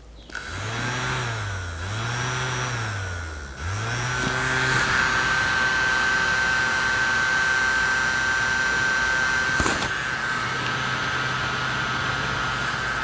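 Small electric fan motor of a solar car air-freshener gadget running: its pitch swings up and down three times, then it settles into a steady high whine with a low hum under it. A single click comes near the end.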